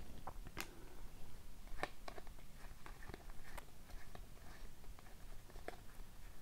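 Trading cards being slid across one another and fanned out by hand: faint, irregular clicks and flicks of card stock.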